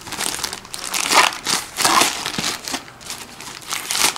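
Grey plastic mailing bag being torn and pulled off a cardboard box by hand, with irregular crinkling and rustling of the plastic.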